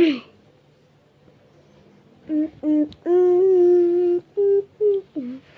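A voice humming: a couple of short notes, then one held note of about a second, then several more short notes.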